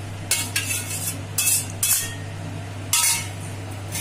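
Boiled diced potatoes and their cooking water poured from a steel pot into a steel draining plate over a stainless sink: about five short bursts of splashing and metal clinking in four seconds, over a steady low hum.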